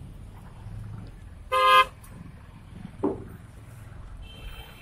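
A road vehicle's horn sounds one short toot about a second and a half in, over a steady low traffic rumble, with a weaker brief sound about a second later.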